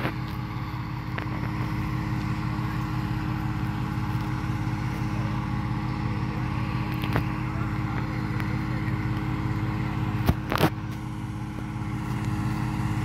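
An engine running at a steady speed, giving an even hum, with a few short sharp clicks, one about halfway through and two close together near the end.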